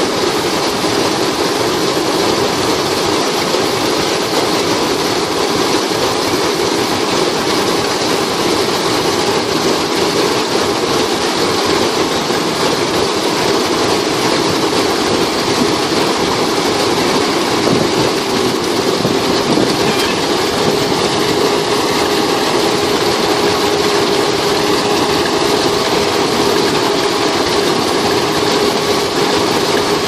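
Paddy combine harvester running steadily, its engine and threshing machinery making a loud, even mechanical din. A steady droning tone comes in about two-thirds of the way through.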